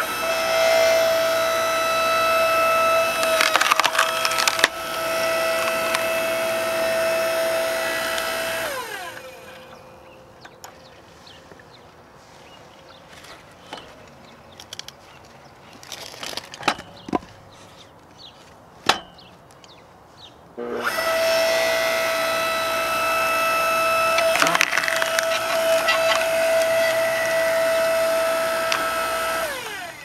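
Electric log splitter's motor and hydraulic pump running with a steady whine while the ram pushes into a log, which cracks and splinters a few seconds in; the motor then winds down with a falling pitch. After a pause with a few knocks of wood being handled, the motor starts again about two-thirds of the way through, another log cracks apart, and the motor winds down near the end.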